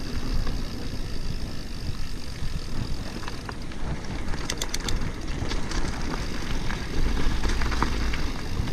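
Wind rushing over the microphone and tyre rumble of an e-mountain bike rolling fast over a grassy, then gravel track, with a brief run of rattling clicks about halfway through.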